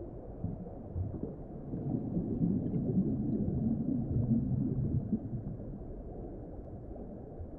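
Low, muffled underwater rumble with a soft gurgle, swelling between about two and five seconds in.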